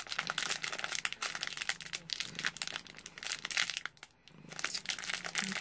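A foil blind bag crinkling as it is squeezed and turned in the hands to feel for the small figure inside, with a brief pause about four seconds in.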